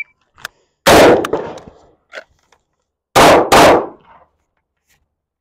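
Three gunshots during a rifle-to-handgun transition drill: one shot about a second in, then, after a faint click, two quick shots about a second and a half later. The last two come from a Shadow Systems MR920 9mm pistol.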